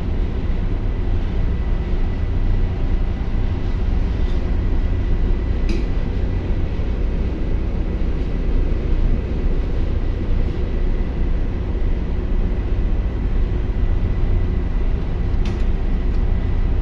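Daihatsu diesel generator running steadily under a loud, even low rumble, with two short clicks about six seconds and fifteen seconds in.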